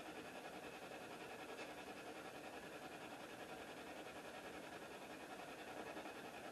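Faint, steady hiss of quiet room tone with no distinct sounds.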